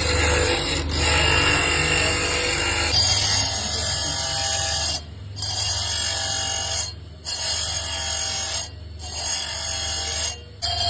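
Workshop grinding or filing on conch-shell bangles, over the steady hum of an electric motor, with a rasping scrape. The sound cuts out briefly four times, about every two seconds, in the second half.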